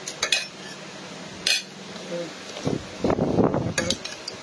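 Metal spoons clinking and scraping against bowls at a meal, a few sharp clinks spread through the moment.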